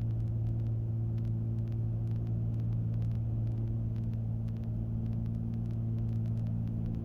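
Cessna 310's twin piston engines and propellers running steadily on final approach, a constant cabin drone with several steady tones.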